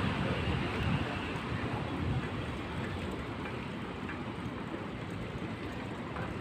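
Steady rushing noise of a ride along a city street: wind on the microphone and wheels rolling over pavement, with traffic in the background.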